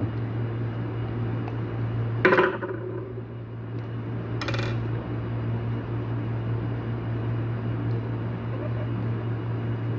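Metal parts and tools clinking and clattering as the casing of a warning siren is opened: one loud clatter with a short ring about two seconds in and a second ringing clink a couple of seconds later, over a steady low hum.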